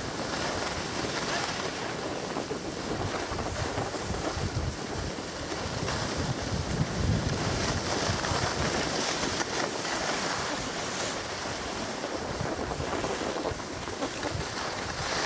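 Wind rushing over the microphone of a camera carried while skiing downhill, with the hiss of skis sliding over packed snow.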